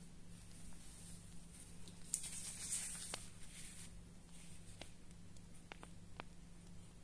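Printed paper chart sheets rustling as they are laid out on a desk, followed by a few light separate taps of fingers on the paper, over a faint steady low hum.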